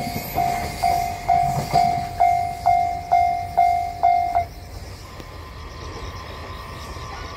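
Japanese level-crossing warning bell dinging about twice a second, then stopping about four and a half seconds in.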